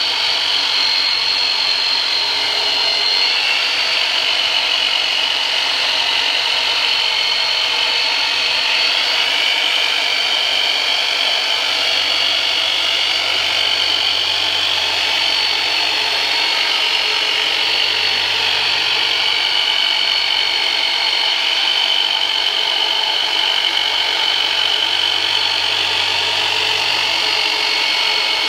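A retooled Black & Decker electric saw, used as a myofascial release massager (the "turbonator"), runs without a break. Its motor whine wavers slightly in pitch, and a low buzz comes and goes from about twelve seconds in.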